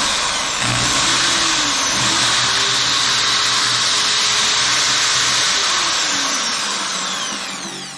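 Bosch GSB 550 RE corded 550-watt impact drill running free at full speed with the trigger squeezed hard, a steady high motor whine. Near the end the trigger is let go and the motor spins down, its pitch falling.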